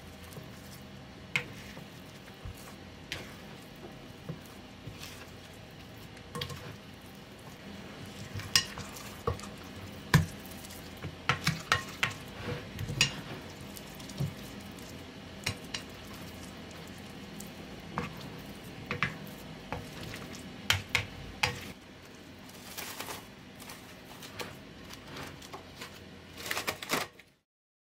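A plastic spatula scrapes and knocks against a glass mixing bowl while stirring and folding sticky bread dough, giving scattered sharp clicks. Near the end, plastic cling wrap crinkles as it is stretched over the bowl.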